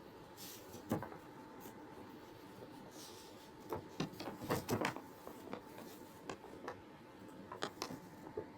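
Light handling noises: scattered clicks and taps, bunched about four to five seconds in and again near the end, over a faint steady hum.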